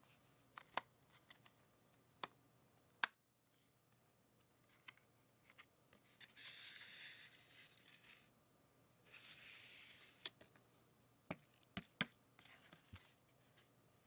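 Quiet handling of a cardboard chocolate box: fingernails click and tap on the card, with two stretches of cardboard rustling a few seconds apart as the box is opened and its tray and flap are moved.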